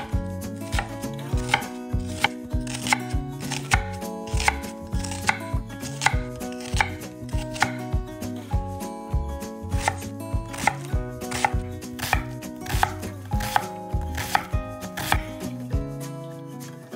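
Knife chopping on a cutting board: a steady run of sharp strikes, about two to three a second.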